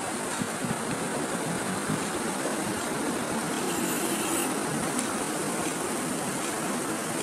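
Steady rushing of sea waves washing over shoreline rocks.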